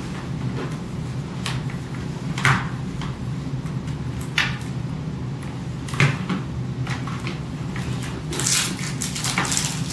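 A laptop and its cables being handled and set down on a wooden desk: scattered light knocks and rustles, with a cluster near the end, over a steady low hum.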